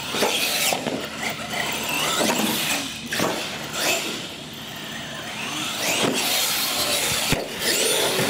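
Radio-controlled monster truck's electric motor and gears whining up and down in pitch as it accelerates, slows and runs over ramps, with tyre noise on concrete. A sharp knock about seven seconds in.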